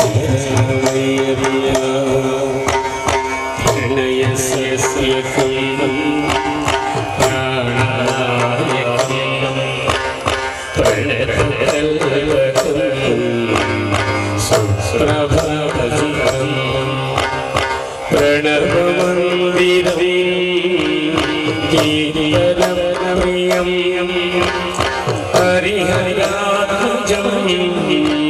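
Indian devotional music: held melodic lines over steady hand-drum percussion.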